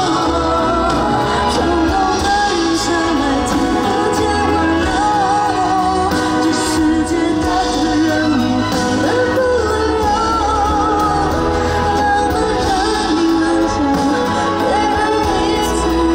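Pop song performed live, a singer's voice over band accompaniment with a steady bass.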